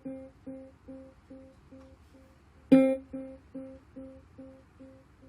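JBL Flip 3 Bluetooth speaker playing its built-in guitar-like prompt tone. The echoes of one plucked note fade out, and about two and a half seconds in a second plucked note sounds, followed by repeats a little over two a second that die away.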